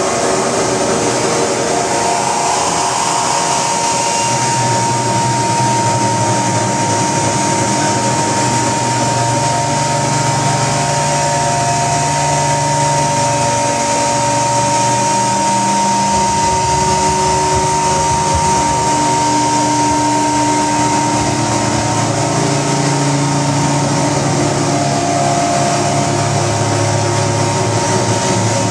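Live electronic noise music played on tabletop electronics: a dense, steady wall of hiss with a single high tone held from about two seconds in, and low droning tones that come and go and shift in pitch.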